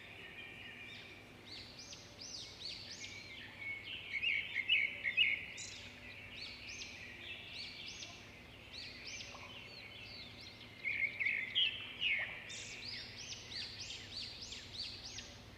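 Several small birds chirping and singing together: many short, high, quickly repeated notes overlapping one another, growing louder in busy flurries about four seconds in and again near eleven seconds.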